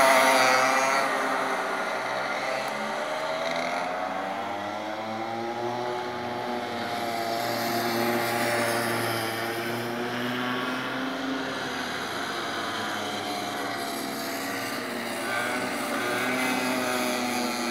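Small racing-kart engines running around the track, their pitch rising on the straights and falling into the corners. The sound is loudest right at the start and fades over the first couple of seconds as a nearby kart moves away, then stays at a steadier level from karts further off.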